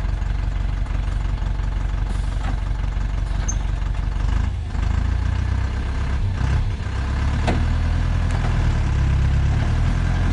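Diesel engine of a log truck running with a steady low rumble, growing louder in the second half, with a few faint knocks.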